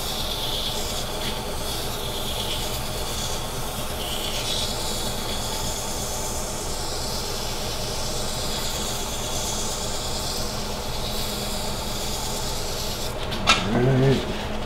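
Sandpaper at 600 grit held against a maple burl sphere spinning on a wood lathe: a steady rubbing hiss over the lathe's running hum. Near the end, a sharp click and a brief voice.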